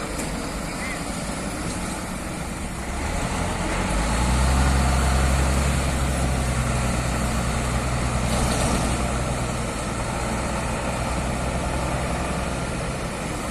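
Heavy diesel truck engine running, its deep steady hum coming in strongly about four seconds in and holding, over a background of road traffic.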